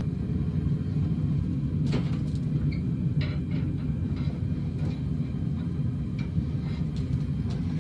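Forge running with a steady low rumble while the blade reheats, with a couple of faint clicks.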